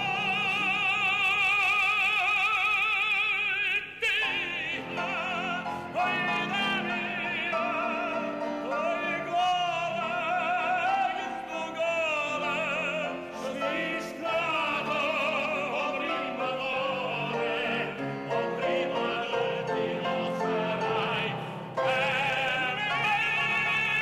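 Operatic tenor singing classical aria phrases over accompaniment. It opens on a long held note with wide vibrato, switches abruptly to a new passage about four seconds in, with sliding and sustained notes, and closes on another held vibrato note.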